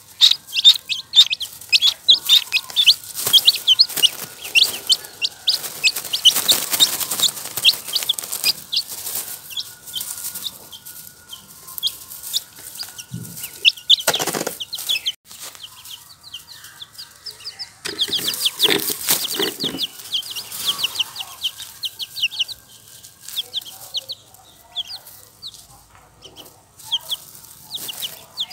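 Days-old chicks and ducklings peeping: rapid runs of short, high-pitched cheeps, thickest in the first several seconds and again past the middle, sparser in between, with a few brief rustling noises around the middle.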